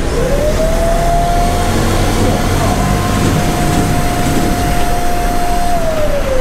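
Cotton candy vending machine running, with a steady mechanical hum under a single whine. The whine rises quickly at the start, holds level and slides down in pitch near the end, like a motor spinning up and winding down.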